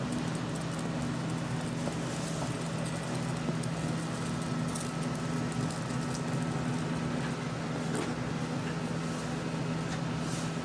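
Steady low mechanical hum of a restaurant kitchen's ventilation fan, with an even hiss and a few faint ticks.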